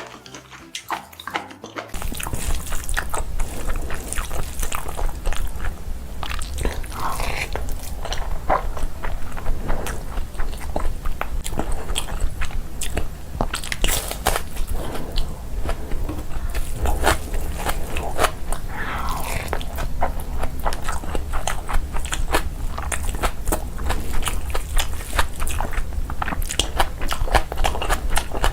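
Close-miked eating sounds: a person biting and chewing food with dense, irregular crunchy and wet clicks, over a steady low hum. It starts about two seconds in after a quieter moment.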